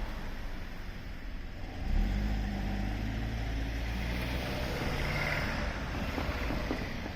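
A road vehicle's engine running close by, with a steady low hum that swells suddenly about two seconds in and then fades away.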